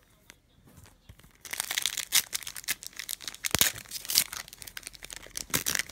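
Foil wrapper of a Pokémon trading-card booster pack being torn open and crinkled. It starts about a second and a half in and goes on as a dense crackling with many sharp snaps.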